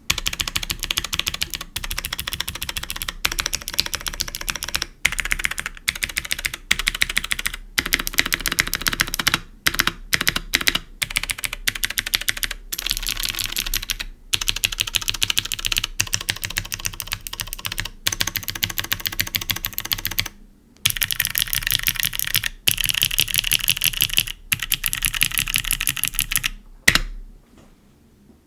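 Fast typing on a Neo75 CU mechanical keyboard fitted with modded Invokeys Pea Flower clicky switches, an aluminium plate and GMK keycaps. Dense, sharp clicks run in flurries, with a brief pause about two-thirds of the way in and another near the end.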